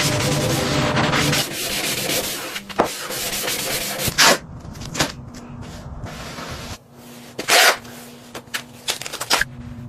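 Sanding: abrasive rubbing on a surface, continuous at first, then in separate strokes, the loudest about four seconds in and again near the end.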